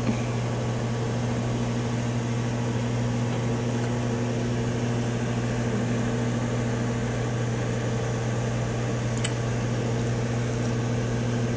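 Microwave oven running with a steady low hum while it heats marshmallows; one faint click about nine seconds in.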